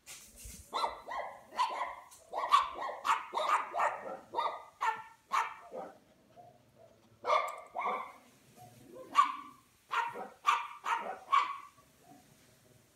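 Puppy barking: a quick series of short, high-pitched barks that pauses for about a second partway through and stops near the end.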